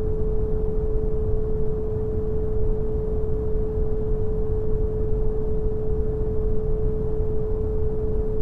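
Steady brown noise, strongest in the low end and fading toward the top, with a single pure 432 Hz tone held unchanging over it.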